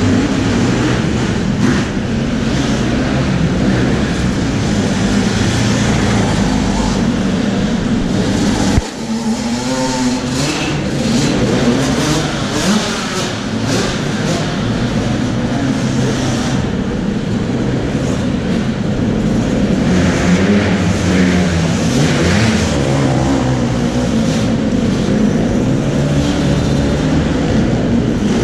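Motocross bike engines running and revving, the pitch rising and falling throughout, with a sudden knock about nine seconds in.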